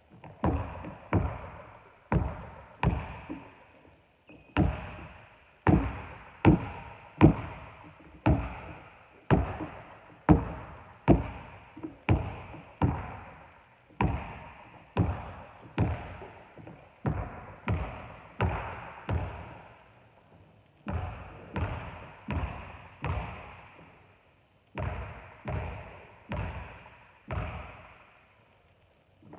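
Basketball being dribbled on a wooden gym floor, a steady run of bounces about every half to three-quarters of a second, with a few short breaks. Each bounce echoes around the large, empty hall.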